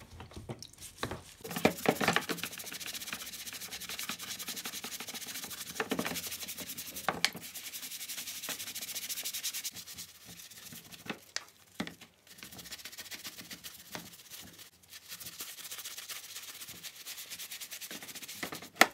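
Stiff brush scrubbing soapy plastic angle-grinder housings in a plastic tub, in fast back-and-forth strokes, with a few sharp knocks and a short pause partway through.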